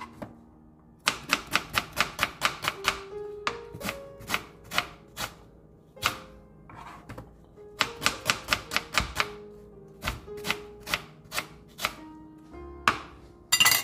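Kitchen knife chopping an onion on a plastic cutting board: several quick runs of sharp taps, about four to five a second, with short pauses between them, and a louder clatter near the end.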